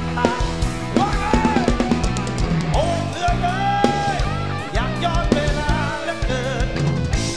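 Thai songs-for-life (phleng phuea chiwit) rock band playing live: a drum kit keeps a steady kick-and-snare beat under bass and a bending lead melody.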